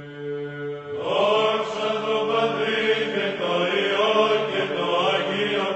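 Orthodox church chant: a steady held drone note, joined about a second in by voices singing a moving melody over it.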